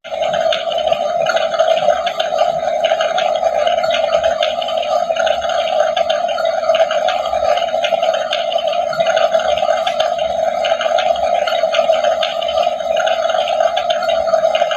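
Electronic sound effect from a toy kitchen playset's small built-in speaker: a steady buzzy hum with a rough, crackling texture. It starts abruptly.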